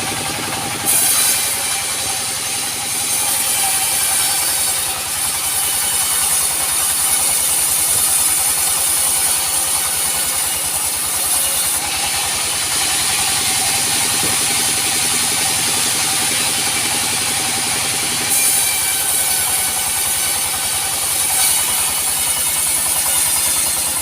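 Band sawmill running: a steady motor drone under the loud high hiss of the blade cutting teak. The cutting sound shifts abruptly about a second in, again about 12 seconds in, and near 18 seconds.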